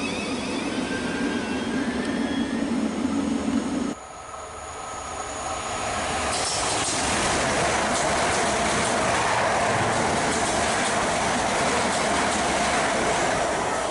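A Thameslink Class 700 electric train running past close by at speed. After a sudden cut about four seconds in, a Southern Class 377 Electrostar approaches and passes at speed: its noise builds over a few seconds to a steady loud rush of wheels on rail, with a faint steady whine.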